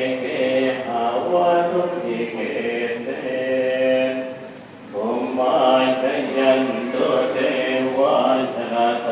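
Buddhist monks chanting in unison, low men's voices holding long, even notes, with a short break for breath about four seconds in before the chant resumes.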